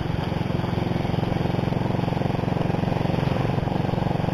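Small motorcycle engine running steadily at cruising speed, heard from the rider's seat, with a fast even pulse.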